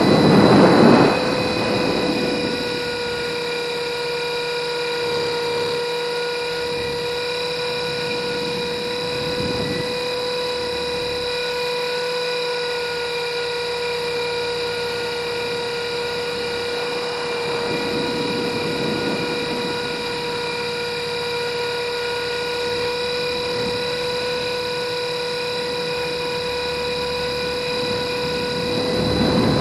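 RC helicopter's motor and rotor heard from a camera mounted on the helicopter: a steady high-pitched whine with overtones that holds one pitch, with a few rushing swells of wind noise, the loudest about a second in and near the end.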